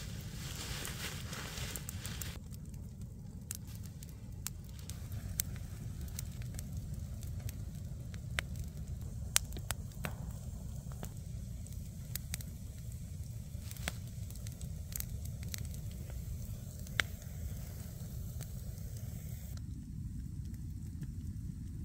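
Wood fire crackling, with irregular sharp pops and snaps over a steady low rumble. A hiss at the start stops about two seconds in.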